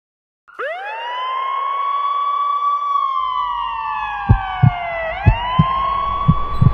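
Ambulance siren wailing. It starts suddenly about half a second in, climbs to a steady high pitch, falls slowly, then rises again near the end. From about four seconds in, low thumps come in pairs about once a second.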